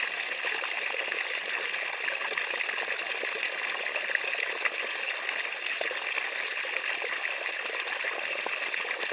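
Water running steadily, a continuous rush dotted with many small splashes and trickles.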